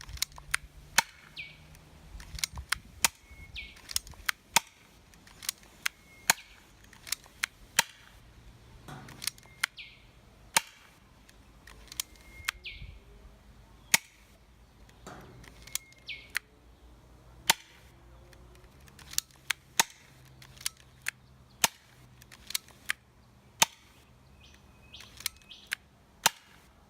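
Lever-action gel ball blaster revolver firing shot after shot, with sharp snaps coming irregularly about once a second and sometimes in quick pairs.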